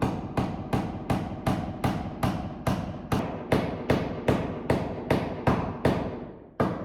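Hammer striking repeatedly in a steady rhythm, about two and a half blows a second, each with a short ringing tail. There is a brief pause near the end, then the hammering starts again.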